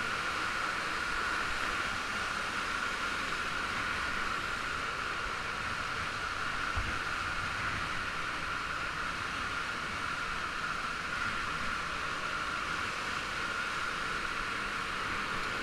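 Steady rush of falling water from the cave stream's waterfall, with a soft bump about seven seconds in.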